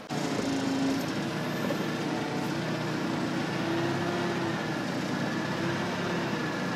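Yale forklift's engine running steadily while it holds and moves the drill rig's mast section, with a slight waver in its pitch.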